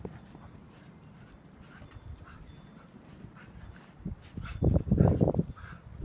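Husky vocalizing: after a quiet stretch, a run of short, loud sounds begins about four and a half seconds in.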